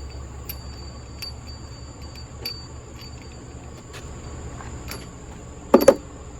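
Light ticks and clicks of metal parts and hand tools being handled, then two sharp metallic clinks in quick succession near the end, over a steady low hum and insects chirping.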